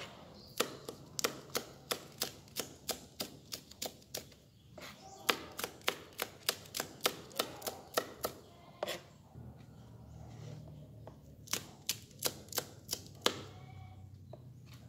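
Knife slicing bird's eye chilies on a plastic cutting board: a run of quick, sharp taps, about three a second, each stroke knocking the board. It pauses briefly about two-thirds of the way through, then a few more strokes follow.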